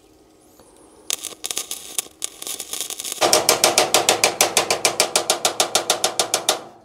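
Electric welding on a motorcycle sidecar frame: a few crackling bursts from about a second in, then a fast, even pulsing of about nine pops a second for some three seconds, stopping just before the end.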